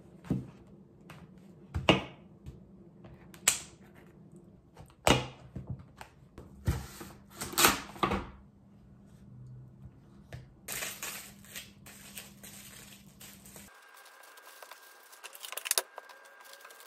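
Hands at kitchen work, portioning a cake for the freezer: a string of sharp clicks and knocks from utensils, containers and packaging, with a stretch of rustling near the middle.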